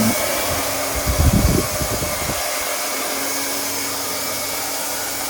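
A steady blowing noise of a running fan motor with a faint low hum, and a brief low rumble about a second in.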